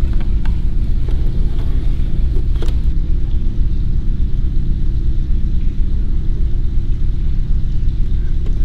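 A loud, steady low rumble, with a few faint clicks in the first three seconds.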